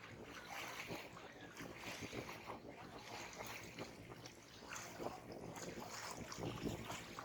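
Small sea waves lapping and splashing against the shore in a string of short, irregular splashes.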